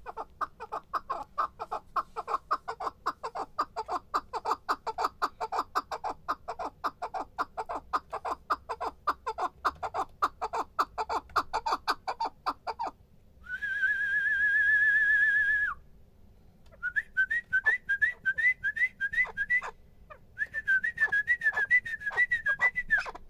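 Chukar partridge calling a long, even series of short chuck notes, about five a second, for over half the time. Then a steady warbling whistle sounds for about two seconds. After a pause come quick runs of short rising chirps.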